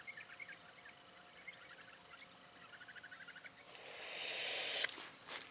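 Insects droning in a steady high tone with small scattered chirps, then about a second of rustling hiss about four seconds in and two sharp clicks near the end.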